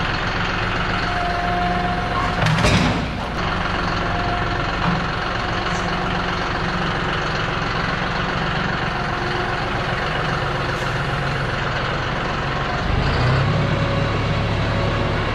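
Diesel engine of a John Deere utility tractor running steadily while its front loader carries a hoisted car engine, with a loud clank about two and a half seconds in. The engine picks up near the end.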